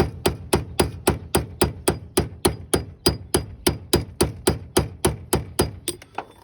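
Hand hammer striking a stuck steel pin on a car's front subframe, about three or four blows a second in a steady rhythm, each a sharp metallic hit with a faint ring.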